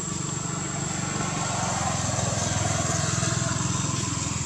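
A small engine running with a steady pulsing low drone that swells a little in the middle and eases again, like a motor passing, over a thin steady high whine.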